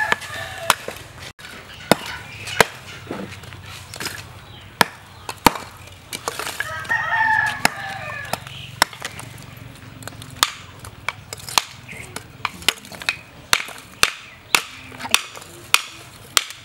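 A hatchet striking lumps of charcoal to break them, giving sharp, dry knocks about once a second at first and closer together in the second half. A rooster crows once, about seven seconds in.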